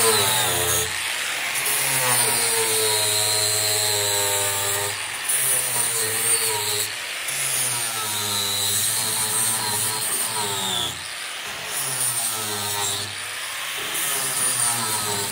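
Corded electric angle grinder with a 60-grit sanding disc, running continuously as it is pressed against and sands bare aluminum. There are brief dips in level about eleven and thirteen seconds in.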